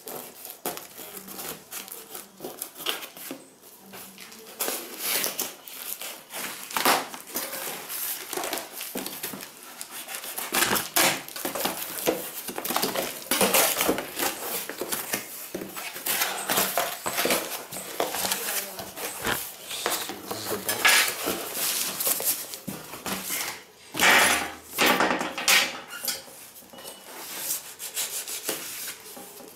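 Cardboard box being cut open with a kitchen knife: irregular scraping and slicing through packing tape and cardboard, with the flaps rustling and knocking as they are pulled open.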